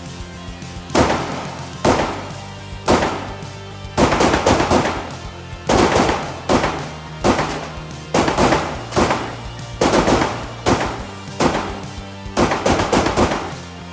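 Music with heavy, hard-hitting percussion: sustained low tones under a series of sharp drum strikes, some single and some in quick rolls of several hits a second.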